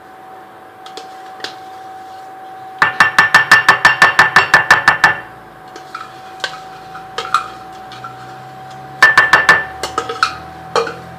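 A spoon clinking rapidly against a dish, about six ringing strikes a second for a couple of seconds. A shorter run of clinks follows later, then a few single taps.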